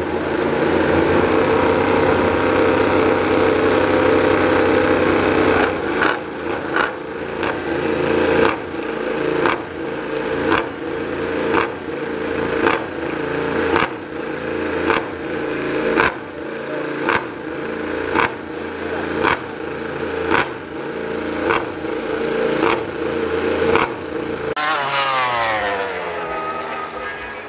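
Yamaha YZR-M1 MotoGP inline-four engines warming up on stands, held at steady high revs for about six seconds, then blipped roughly once a second. Near the end, a motorcycle passes on track with its pitch sweeping down.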